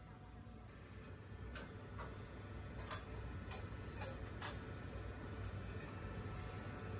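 Gloved hands rolling and folding a flatbread wrap on a cutting board, making a handful of soft, irregular taps and clicks over a steady low kitchen hum.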